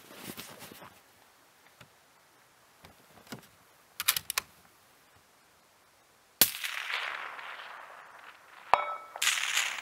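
A few light clicks, then a single loud rifle shot about two-thirds in that echoes and fades away over a couple of seconds. Near the end comes a short ringing metallic ping and a rattling clatter.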